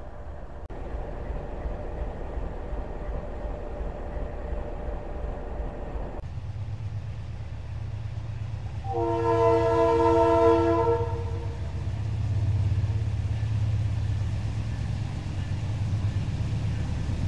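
GE Dash 9 diesel locomotives running: a low rumble with a steady hum at first, then the lead locomotive of the approaching coke train sounds its multi-tone air horn once for about two seconds. The deep diesel engine drone grows louder afterwards as the three locomotives draw near.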